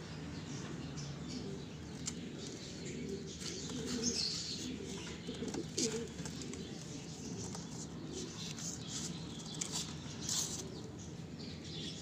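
Faint background ambience with soft bird calls now and then, including a few brief high chirps.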